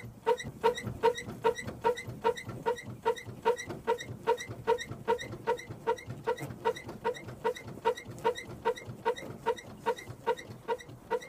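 A rhythmic creak, a short pitched squeak repeating evenly about three times a second, starting abruptly.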